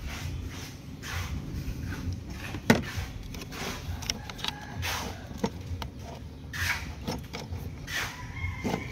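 Irregular clicks, taps and rustling from hands and a handheld camera moving around a car's engine bay, with one sharp click about three seconds in.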